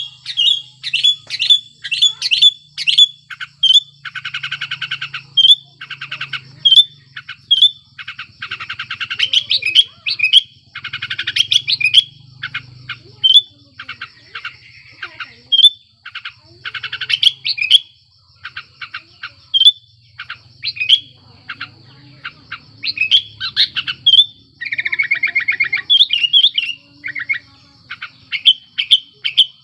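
Sooty-headed bulbul (kutilang) calling excitedly in breeding condition: a rapid string of loud, short, clear whistled notes, broken several times by fast chattering rattles.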